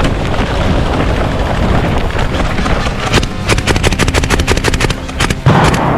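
Airsoft rifle firing a rapid full-auto burst of a little over a second, about a dozen shots a second, over a steady noisy background.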